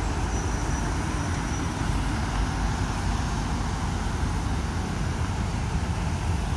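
Road traffic noise from cars and SUVs passing on a multi-lane road: a steady wash of tyre and engine sound with a strong low rumble.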